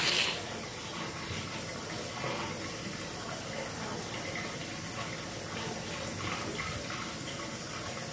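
Water running steadily from a kitchen tap, an even hiss with no change; a brief sharp knock right at the start is the loudest moment.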